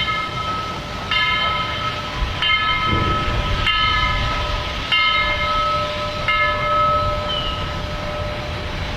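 Steam locomotive No. 4501's whistle sounding several notes at once, blown in about six short blasts a little over a second apart over a held lower note, then cutting off near the end. A low rumble from the moving train runs underneath.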